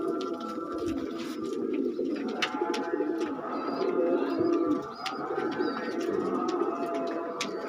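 Several domestic pigeons cooing together in a continuous, overlapping burble, with a few sharp clicks and some faint high chirps through the middle.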